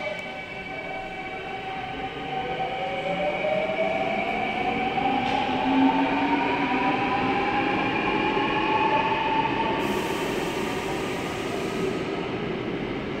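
Daejeon Metro Line 1 electric train (set 112) pulling away from the platform and accelerating, its motor whine rising steadily in pitch over running rumble. Near the end there is a hiss for about two seconds as the train clears the platform.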